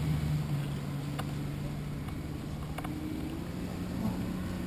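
Outdoor waterside noise: wind on the microphone and moving water, over a steady low hum that shifts slightly higher about four seconds in, with a couple of faint clicks.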